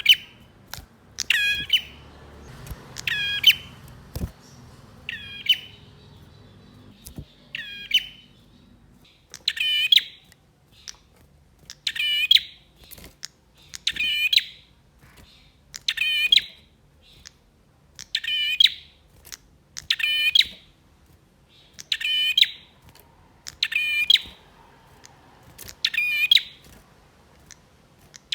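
Male prinia (prenjak) calling: short, sharp, high-pitched phrases repeated about every two seconds.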